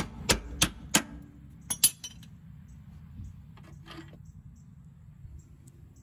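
Hammer blows on a steel punch driving the lower shock-absorber mounting bolt out of its bracket: sharp metallic strikes about three a second, then a close pair, stopping about two seconds in. A few faint metallic clinks follow about four seconds in.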